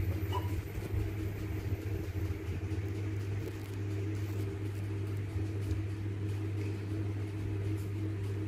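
A steady low mechanical hum, like a fan or small motor running, with a brief faint high squeak about half a second in.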